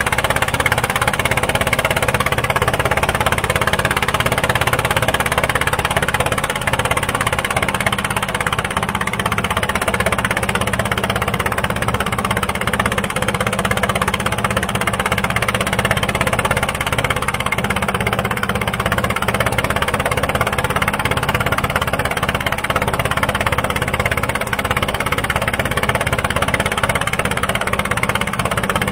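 Boat engine running steadily at constant speed.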